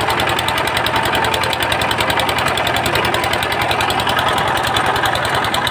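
VST Shakti 130 DI power tiller's single-cylinder diesel engine running steadily, with a rapid even beat, driving the freshly fitted rotary tiller blades spinning freely in the air through the exposed chain drive.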